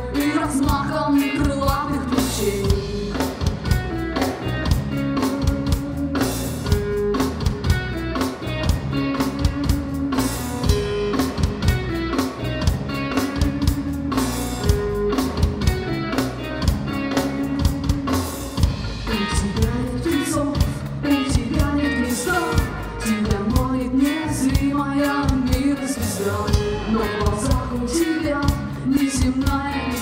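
A live rock band playing: electric guitar, bass guitar and drum kit, with a woman singing a slow melody over them.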